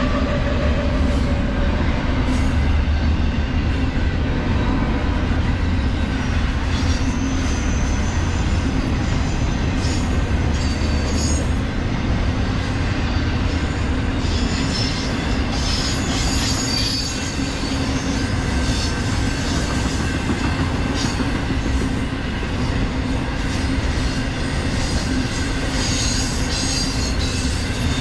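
BNSF double-stack container freight train passing close by: a steady rumble of the wheels on the rails, with high-pitched wheel squeals coming and going, strongest in the middle and near the end.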